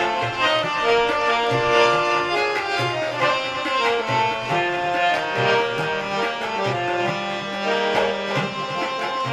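Harmonium playing a melody in an instrumental passage of a Dogri folk song, over regular hand-drum beats.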